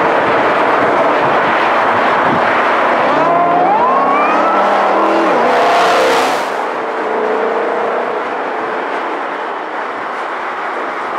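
Ford Mustang Shelby GT500's supercharged 5.2-litre V8 running under load, its pitch rising for a couple of seconds a few seconds in, then dropping. It quietens after about six seconds.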